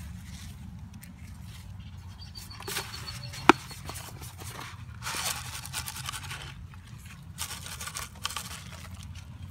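Granular fertilizer shaken from a container and scattered by gloved hands onto garden soil: several short gritty, rustling bursts, with one sharp click about three and a half seconds in and a steady low rumble underneath.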